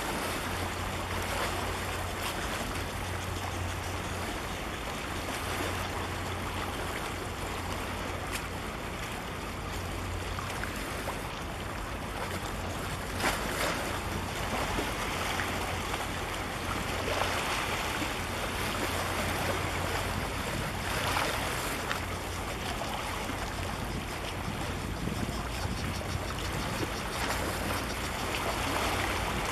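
Wind buffeting the microphone over the wash of sea water, with a low steady rumble underneath and a few brief stronger gusts.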